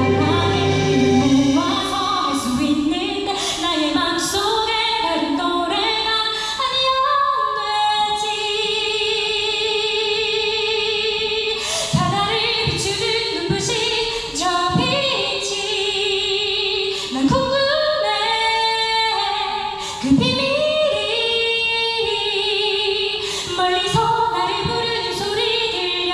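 A female voice singing a Korean-language ballad over musical accompaniment with a steady beat, holding and bending long notes.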